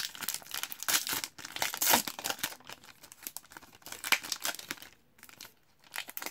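Foil hockey card pack wrapper being torn open and crinkled in the hands, densest in the first two seconds, then thinning to scattered crinkles with a brief lull before a last burst near the end.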